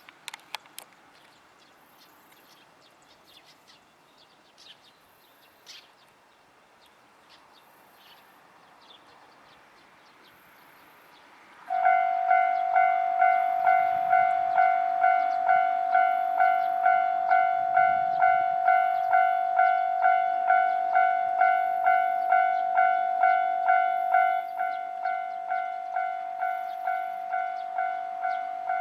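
Japanese railway level-crossing warning alarm starting up suddenly after a stretch of faint outdoor ambience, ringing a steady, evenly repeated clanging tone at about two strikes a second. About 24 s in it drops a little quieter and keeps ringing.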